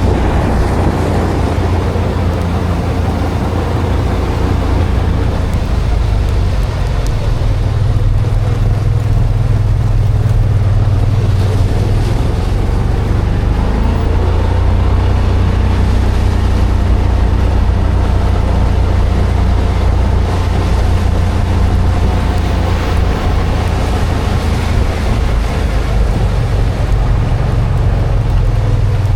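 A motor engine running steadily, its pitch shifting about halfway through as the speed or load changes.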